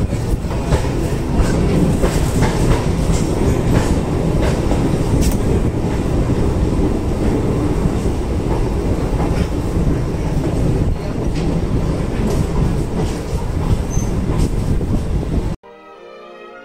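A moving train running on the rails: a steady rumble heavy in the low end, with scattered sharp clicks of the wheels. It cuts off abruptly near the end and orchestral music takes over.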